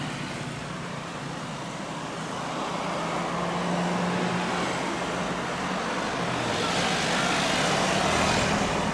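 Boeing 777-300ER's twin GE90 jet engines at takeoff thrust through the takeoff roll and lift-off: a steady jet roar with a low hum, growing louder and hissier over the last few seconds as the airliner lifts off and comes closer.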